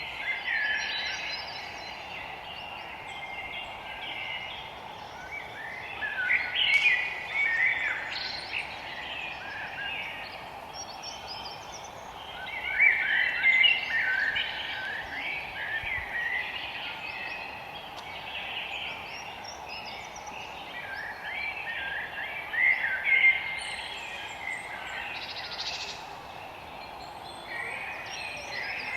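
Forest songbirds singing in bouts of quick, twittering phrases a few seconds apart, over a steady background hiss.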